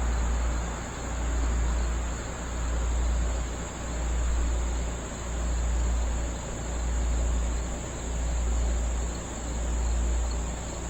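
Steady high chirring of field insects, over a low rumble that swells and fades about every one and a half seconds.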